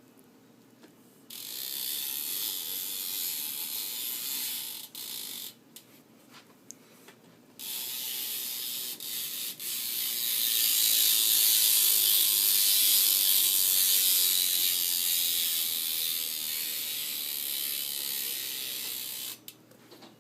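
Premium Stinger rear hub on a BMX bike, its ratchet clicking in a rapid buzz as the rear wheel freewheels. It runs in spells: a stretch of clicking, a pause of about two seconds, then a longer, louder run that stops near the end.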